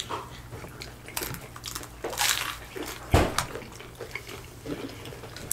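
Eating sounds at the table: wet chewing and slurping of spicy noodles piled on hard-shell tacos, in short irregular bursts, with one louder bump about three seconds in, over a faint steady low hum.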